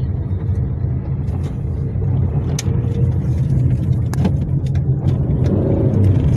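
Car driving along a road: a steady low rumble of engine and tyres, with a few sharp knocks and clicks scattered through it.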